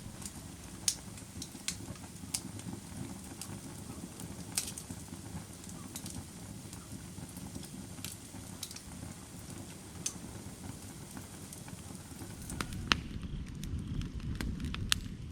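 Firewood burning, crackling with sharp irregular pops and snaps over a steady low rush of flame. The flames grow louder near the end.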